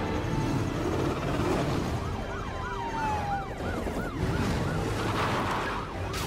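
A siren on a police car yelping in a fast up-and-down cycle, about three times a second, starting about two seconds in, over a low rumble of vehicles.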